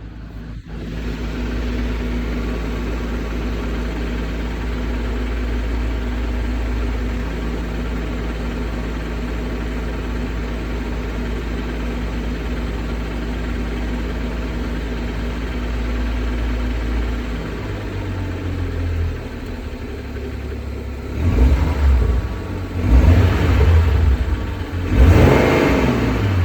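BMW N55 3.0-litre turbocharged straight-six running steadily at operating temperature, then blipped three times in quick succession near the end. The owner hears a clicking after each rev, like a card flicking through bike spokes, and does not know its cause.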